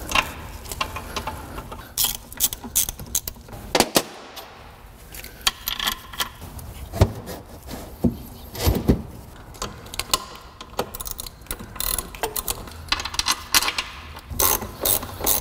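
Scattered metal clanks and knocks of tools and loose bolts being handled, with one louder knock about nine seconds in. Near the end there is a quick run of hand-ratchet clicking as a transmission-to-engine bolt is started.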